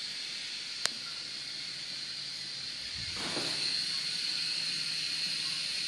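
Water running continuously through a urinal with a steady hiss, louder from about three seconds in. A single sharp click just under a second in.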